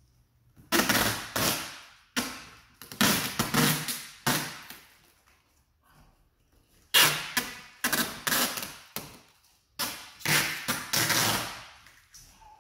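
Packing tape being pulled off its roll in harsh ripping strips, in four spells of one to three seconds each, as the cardboard box is taped shut.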